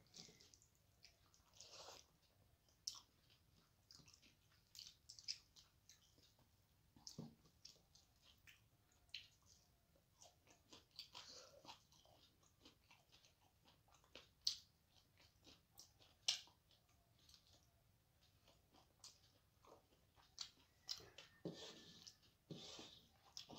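Close-miked chewing and soft wet mouth sounds of someone eating soft rice by hand, with irregular small clicks and smacks.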